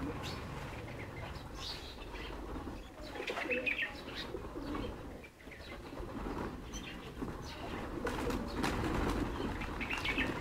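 A flock of pigeons flapping their wings as they take off and land around a feeding spot, with cooing. The fluttering grows louder near the end as several birds lift off together.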